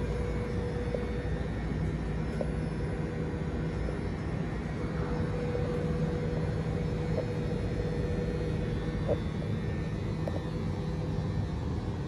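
Alstom C-series electric railcar humming steadily while standing with its doors closed: a constant mid-pitched tone over a lower tone and a low rumble, with a few faint ticks.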